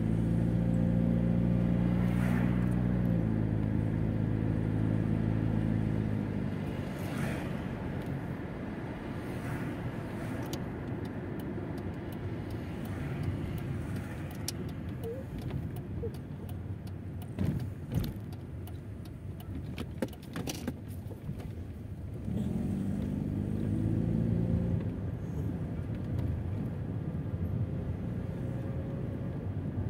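Mercedes-Benz car driving, heard from inside the cabin: the engine pulls under acceleration for the first few seconds and again about three-quarters of the way through, with steady road and tyre noise between. A few sharp clicks and knocks come just past the middle.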